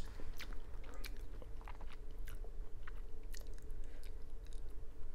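Close-miked chewing of instant ramen noodles, with short sharp mouth clicks several times a second over a faint steady hum.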